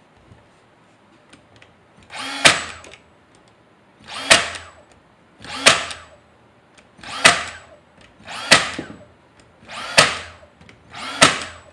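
Cordless battery-powered brad nailer driving brads into a wooden box, seven shots about one every one and a half seconds. Each shot is a short whir building into a sharp crack.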